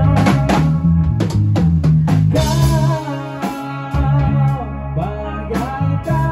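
Rock band playing live: electric guitars and a PDP drum kit, with a singer's voice over them and drum hits several times a second.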